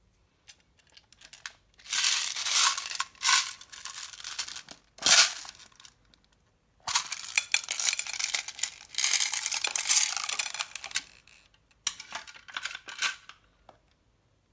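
Small plastic beads rattling in a plastic case and clattering out onto slime in a glass bowl, in three spells with a sharp click about five seconds in.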